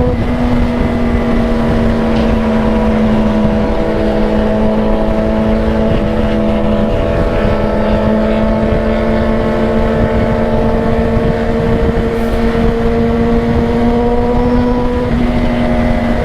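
Yamaha XJ6 motorcycle's inline-four engine at a steady cruise, heard from the saddle, with a heavy wind rumble on the microphone. The engine note holds almost level, rising a little over the stretch and easing off near the end.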